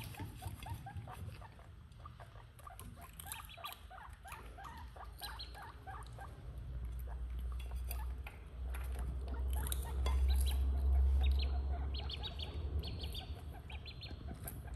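A guinea pig and ducklings feeding from a bowl of grass: quick, busy nibbling and chewing clicks mixed with short high peeps from the ducklings, the peeps clustering near the end. A low rumble swells through the middle.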